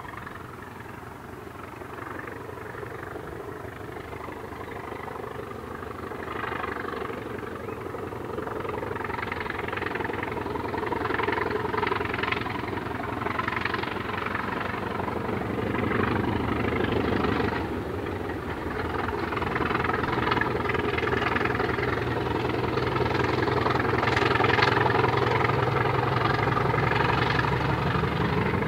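English Electric Class 20 diesel locomotive D8188, its eight-cylinder English Electric engine running as it hauls a train, growing steadily louder as it approaches.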